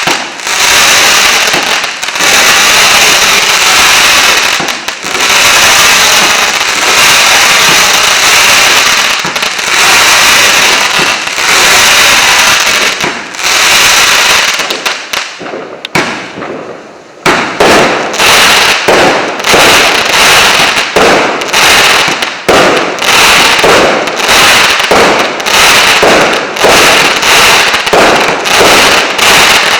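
Multi-shot firework cake of 1.2-inch calibre firing. The first half is a dense, continuous barrage of bangs and crackling. After a brief lull a little past the middle, a rapid string of sharp reports follows, about two a second.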